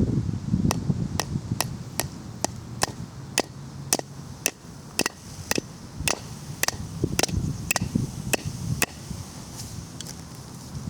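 Hammer striking a nail about seventeen times at roughly two blows a second, each blow a sharp metallic tap with a short ring, driving the nail through a lithium-polymer battery. The blows stop about nine seconds in, with wind noise underneath.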